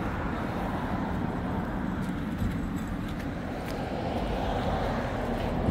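Steady vehicle engine and road noise, a low continuous rumble with a few faint ticks.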